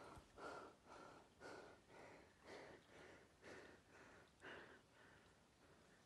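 Faint rhythmic sounds of a person walking along a wet dirt track, about two a second.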